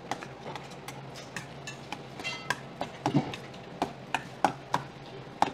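Metal chopsticks clicking and scraping against a stainless steel bowl while tossing noodles and vegetables together: irregular sharp clinks, several a second.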